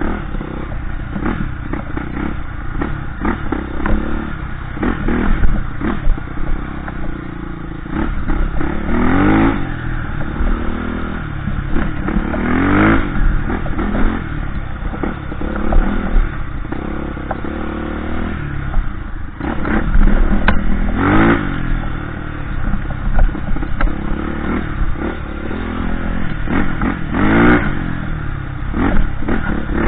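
Off-road motorcycle engine running hard, revving up and easing off again and again, with sharp rises in revs about nine, twelve, twenty-one and twenty-seven seconds in.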